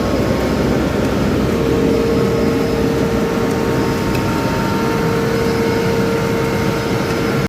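An engine or machine running steadily, with a constant whine over a broad rumble.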